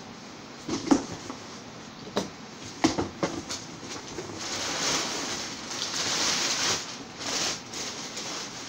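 A cardboard shipping box being opened by hand: a few knocks and thumps as the flaps are pulled back, then a few seconds of crinkling and rustling as packing wrap inside is pulled out.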